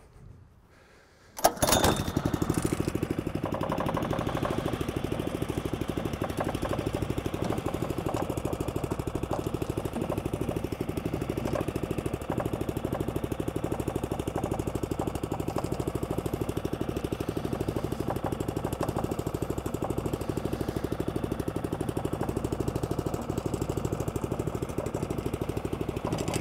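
Allett Buffalo cylinder mower's small petrol engine starting abruptly about a second and a half in, then running at a steady speed.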